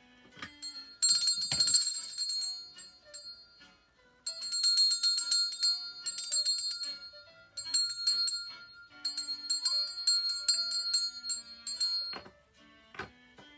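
Bells ringing over music, in three long stretches of bright jingling, with a few sharp knocks near the start and again near the end.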